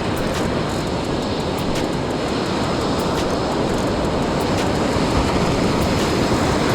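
Steady rush of ocean surf breaking on the beach, with no let-up.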